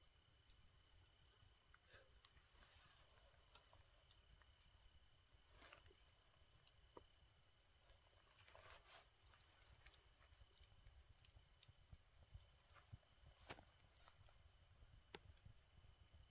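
Near silence, with the faint steady chirring of crickets and a few faint clicks.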